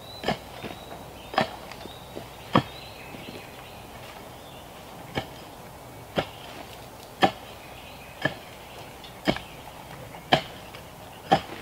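Pick mattock striking into the ground: about ten heavy chops, roughly one a second, with a longer pause after the third.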